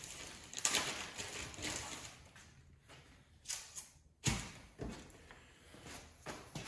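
Handling noises from a man moving about with small snowblower parts: rustling and scraping with a few knocks, the sharpest thump about four seconds in.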